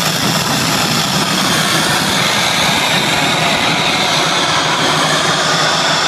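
Loud electronic dance music over a club sound system, heard as a dense, steady wash with no clear beat.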